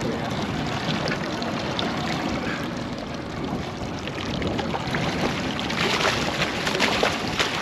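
Steady wind and water noise, then splashing that grows louder over the last two seconds or so as a hooked fall Chinook salmon thrashes at the surface beside the boat while it is netted.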